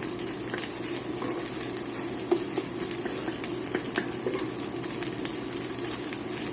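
Rice, spam and egg frying in an oiled pan with a steady sizzle as it is stirred, with a few sharp taps of the stirring utensil against the pan, the loudest about two seconds in.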